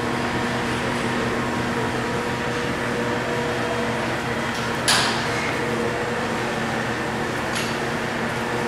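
Electric gear motor of a stainless steel kettle's single-action agitator running with a steady hum. A sharp knock about five seconds in and a fainter one near the end.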